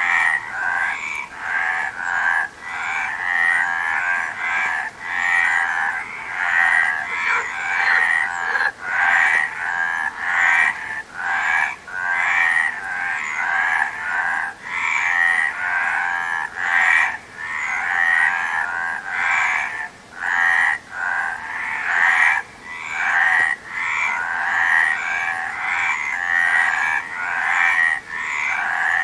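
A chorus of many frogs croaking, their short calls overlapping with only brief gaps.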